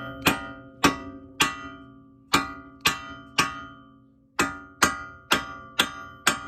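Hammer blows on the steel front strut assembly, about eleven ringing metallic clangs at roughly two a second with two short pauses, knocking the strut down to seat it in its groove.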